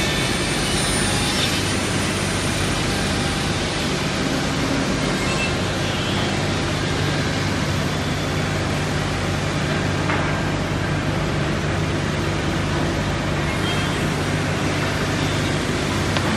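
Fuvico twin-blade corner-cutting saw and workshop machinery running steadily: a constant whir over a low motor hum, with no distinct cuts standing out.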